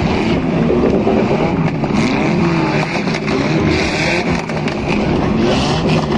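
Several car engines revving hard together in a no-rules car race, their pitches rising and falling over one another without a break, with a steady hiss of tyres on the track.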